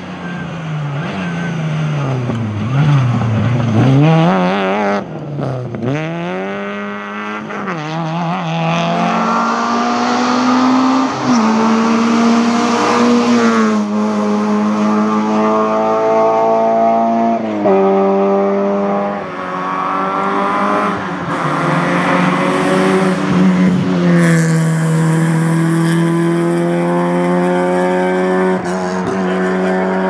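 Rally cars' engines run at high revs, climbing in pitch through the gears and dropping sharply at each change, as the small hatchbacks come past one after another.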